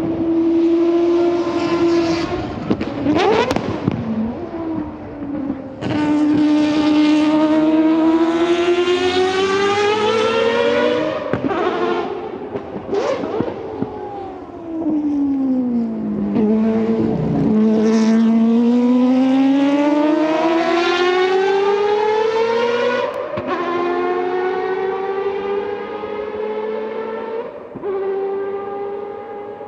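Mazda 787B's four-rotor Wankel rotary engine accelerating through the gears. The revs climb and then drop sharply at each upshift. About halfway through the pitch falls away as the car slows, then climbs again.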